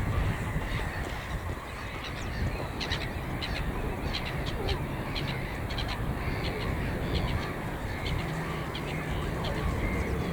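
Wild birds calling: a run of short, sharp, high-pitched calls, several a second through the middle, over a steady low rumble.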